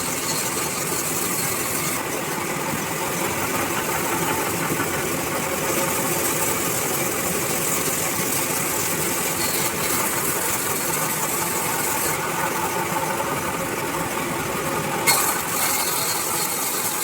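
Sawmill bandsaw running steadily as it cuts through coconut wood, a dense mechanical hum with hiss that rises and falls in places. A single sharp knock comes near the end.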